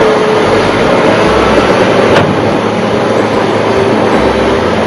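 Caterpillar 938M wheel loader running as it pushes an SUV across gravel: a loud, dense, noisy machine sound, with a sharp click about two seconds in.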